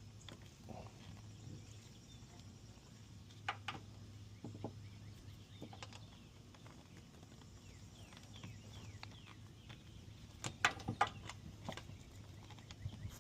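Scattered light clicks and taps of metal as an oil drain plug is threaded back in by hand, with a cluster of clicks near the end, over a low steady hum.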